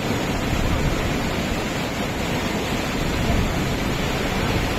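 Rushing white water of a flooded mountain stream, a steady unbroken rush.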